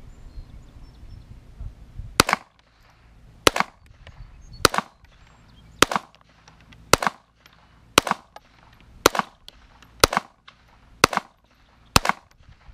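High Standard Sport King .22 LR semi-automatic pistol firing ten shots, the first about two seconds in, then a steady pace of about one shot a second.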